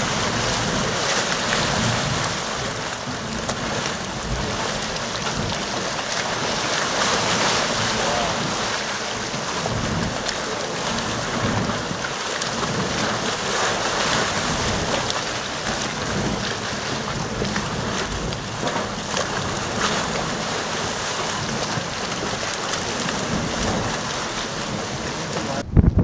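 Geyser inside a cave steaming and churning its water, a steady rushing noise that does not let up.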